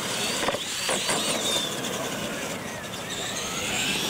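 Radio-controlled monster trucks racing, their motors whining and gliding up and down in pitch as they speed up and slow. A couple of sharp knocks come in the first second.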